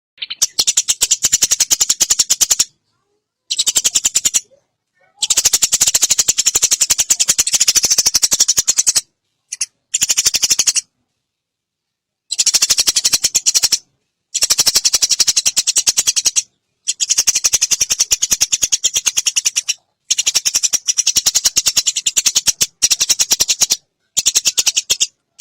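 Eurasian tree sparrow giving long, rapid chattering rattles, fast runs of sharp high notes, in about ten bouts of up to four seconds separated by short silent gaps.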